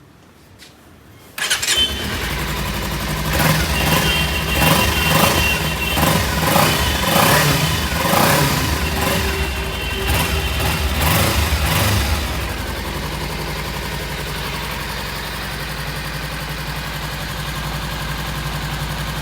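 Kawasaki Ninja 300 BS6's parallel-twin engine through its stock silencer: it starts about a second and a half in and is revved in repeated throttle blips for about ten seconds. It then settles to a steady idle.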